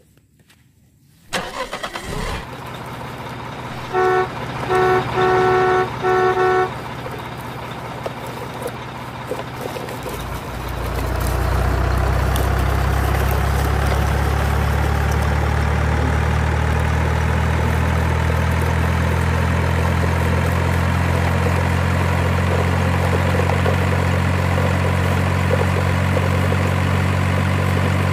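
A truck horn beeps four times in quick succession. A few seconds later a heavy truck engine starts and settles into a loud, steady idle.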